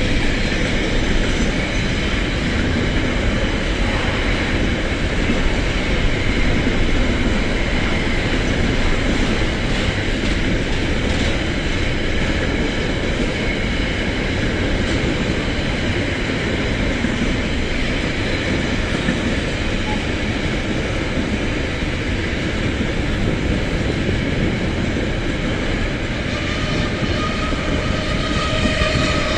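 Freight train of container wagons rolling past, a steady loud rumble of wheels on rails. Near the end a steady tone joins in.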